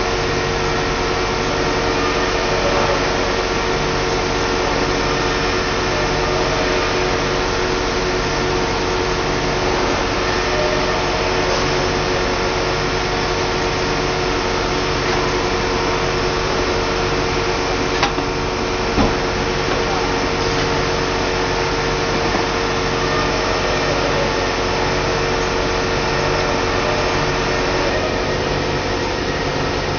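SRB100A extrusion blow moulding machine running with its mould closed: a steady machine hum with a fixed tone and a low pulse repeating about once a second. Two sharp clicks about a second apart come a little past the middle.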